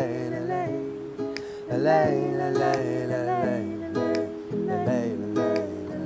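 Acoustic guitar strummed in a steady rhythm, with wordless sung vocal lines over it.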